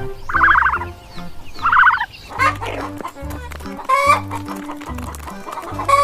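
Domestic fowl calling: two quick rattling calls in the first two seconds, then a run of shorter clucks and squawks. Background music with a steady beat plays underneath.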